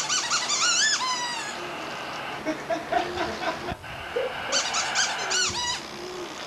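Baby squealing happily in high, gliding squeals: a run of them at the start, softer coos and babbles in between, then another run about four and a half seconds in.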